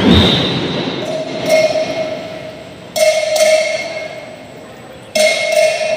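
A loud crowd and band din fades over the first second. Then come three pairs of bell-like metal strikes, the strikes in each pair about half a second apart, each note ringing briefly.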